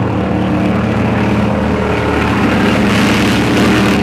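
Loud race truck engine running hard, getting louder about two and a half seconds in.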